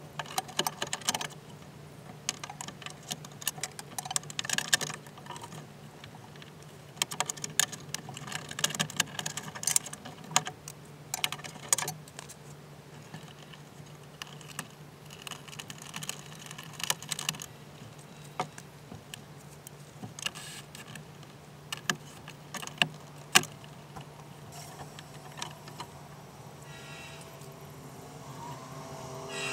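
Quick clusters of clicks, taps and rattles from hand tools and parts inside the open car door as the window regulator is worked on, over a low steady hum. A rising whine comes in near the end.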